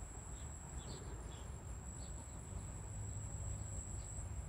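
Faint background ambience: a steady high-pitched tone with a few faint short chirps over a low rumble.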